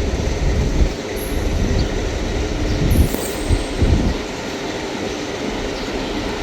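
Train running past on the track: a continuous rumble, with a few heavy knocks partway through and two short hissy bursts.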